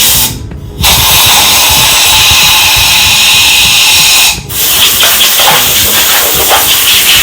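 Compressed-air blow gun hissing into a freshly drilled head stud hole in a Honda B18B1 engine block, blowing out the metal shavings. A brief puff at the start, then a long blast of about three and a half seconds, a short break, and a second blast of about three seconds.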